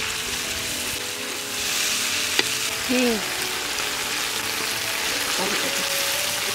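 Spice pastes sizzling in hot mustard oil in a pan while being stirred, a steady frying hiss. There is a single sharp tap of the utensil on the pan about two and a half seconds in.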